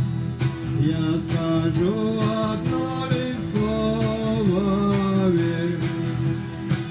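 Music: strummed acoustic guitar with a melody line of held notes that slide from one pitch to the next.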